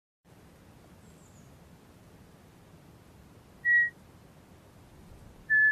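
Two short, clear whistled notes about two seconds apart, the second a little lower in pitch, over a faint hiss that comes in just after the start: cartoon bird tweets.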